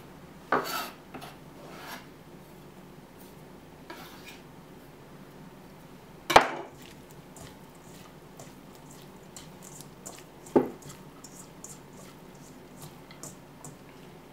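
Hands mixing sliced cucumber and shredded crab sticks in a stainless steel mixing bowl: soft rustling and many small ticks, with three sharp metallic knocks against the bowl, the loudest about six seconds in.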